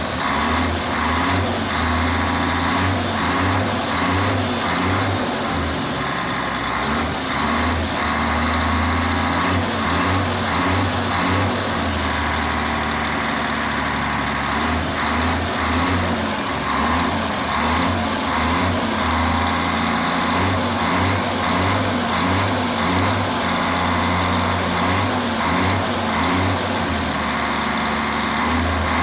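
Mercedes-Benz 1634 truck's six-cylinder OM 457 diesel running through a straight-pipe exhaust, revved up and down repeatedly. The engine has just had new injectors fitted and its valves adjusted.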